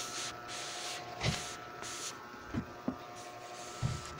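Handling noise from a phone held close to the face: a few dull thumps and rustles over a faint steady hum.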